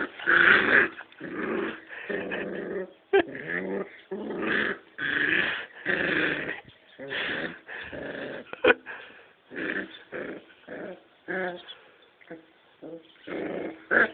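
Puppies play-fighting, growling in a run of short bursts, with two sharp clicks among them.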